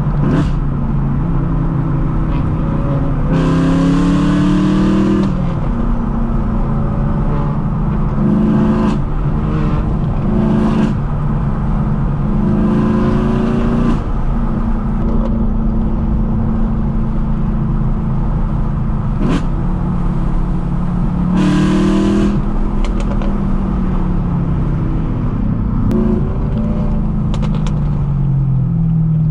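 BMW E92 M3's V8 through a straight-piped exhaust, heard from inside the cabin. It pulls up through the revs and drops back again and again as the car accelerates and is shifted, with a few short sharp cracks in the last few seconds.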